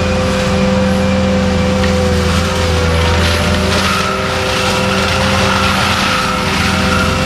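ASV RT-120F compact track loader running steadily with its hydraulic forestry mulcher head spinning: a constant engine drone under a steady whine.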